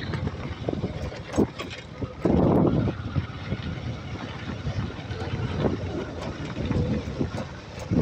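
A motorcycle running along a bumpy gravel road, with wind buffeting the phone's microphone and short knocks and rattles from the bumps. A louder rush of wind noise lasts about half a second, a little over two seconds in.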